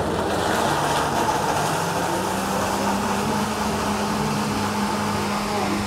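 Steady mechanical hum under an even rushing noise, with no distinct events.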